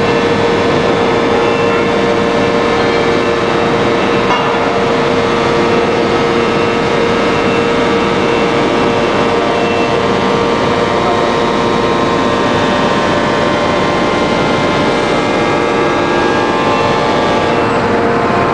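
A 1250-ton hydraulic open-die forging press running: a loud, steady machine drone with a constant hum that holds without change.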